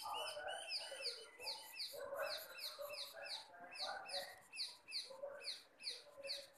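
A bird chirping, a steady run of short falling chirps about three a second, with softer lower-pitched calls between them.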